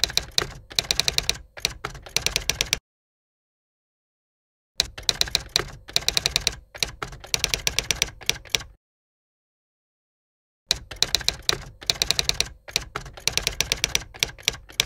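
Typewriter typing sound effect: fast runs of clacking key strikes in three bursts, broken twice by about two seconds of dead silence.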